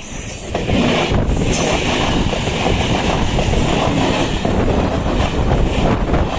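EMU (electric multiple unit) local train passing close by, its wheels rumbling and clattering over the rails. The noise jumps up about half a second in and stays loud and steady.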